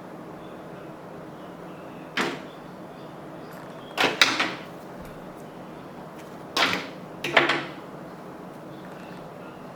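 Four short hissing swishes, roughly two seconds apart, over a faint steady background hum.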